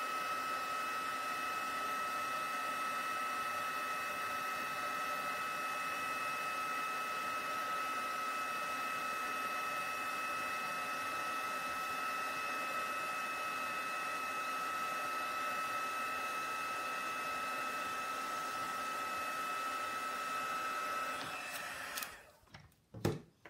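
Embossing heat gun running with a steady whine over its fan noise, melting embossing powder. It switches off about 21 seconds in, followed by a couple of short knocks.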